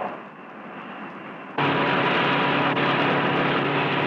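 Airfield crash trucks spraying foam onto a runway: a steady rush of spray over a humming engine drone. It cuts in abruptly about a second and a half in, after faint film-soundtrack hiss.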